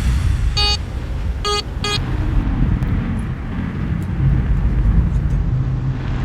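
A vehicle engine running with a steady low rumble, with three short high-pitched beeps in the first two seconds.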